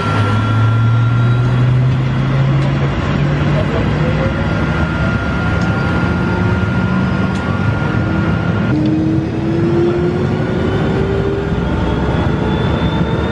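Helicopter turbine engines spooling up, heard from inside the passenger cabin: a steady mechanical noise with whines that climb slowly in pitch.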